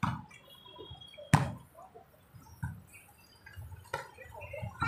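A volleyball being hit by players' hands during a rally: four sharp slaps, the loudest about a second and a half in, with lighter hits at the start, around two and a half seconds and near four seconds.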